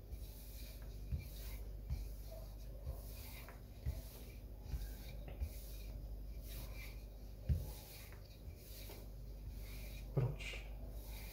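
Wooden rolling pin rolling out shortcrust pastry dough on a floured worktop: soft rubbing strokes with light knocks about once a second, and a couple of louder knocks in the second half.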